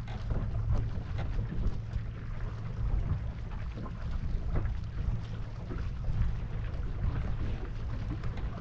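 Wind rumbling on the microphone over water rushing and splashing against the hull of a Lightning-class sailboat under way.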